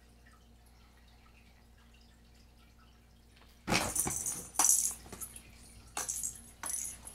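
Cats batting at their toys: quiet for the first three and a half seconds, then several loud, sudden bursts of rustling and rattling.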